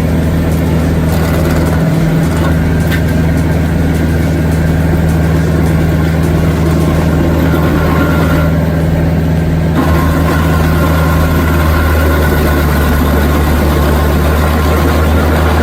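Tractor engine running steadily while driving a PTO stump grinder. The sound is loud and continuous, and its tone shifts slightly about ten seconds in.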